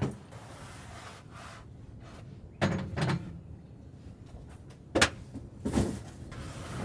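A few hard knocks and clunks from a filter being set into its housing on a combine, with a sharp click about five seconds in.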